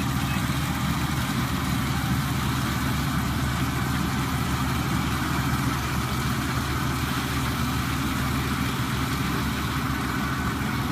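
Engine of a heavy machine running steadily at idle, with a low, even hum.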